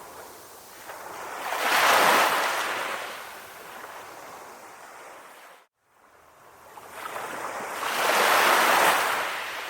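Sea waves breaking and washing on a beach: two surges about six seconds apart with quieter wash between them. The sound cuts out to silence for a moment about halfway through.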